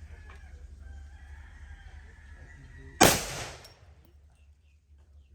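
A single gunshot from a Desert Eagle .50AE pistol about three seconds in, very loud and sharp, with a short echo trailing off over under a second.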